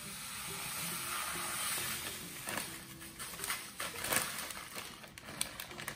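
Paydirt of sand and gravel pouring out of a plastic zip bag into a plastic gold pan: a steady hiss of grit sliding for the first two seconds or so, then scattered clicks and crinkles as the bag is shaken and handled to empty the last of it.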